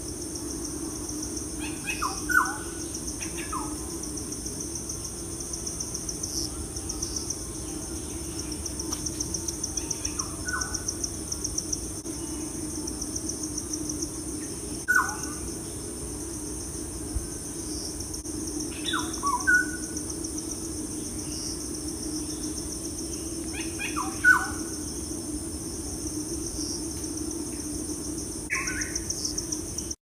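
Crickets trilling steadily in a fast-pulsing high buzz, with short falling bird chirps every few seconds standing out above it.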